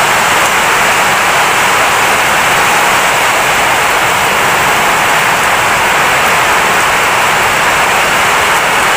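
Torrential rain driven by strong wind in a coastal storm: a loud, steady rushing hiss.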